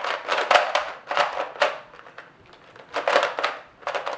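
Large 2x2 Rubik's cube being turned fast during a speedsolve: quick runs of plastic clacking and scraping turns, in four or five bursts with a pause of about a second midway.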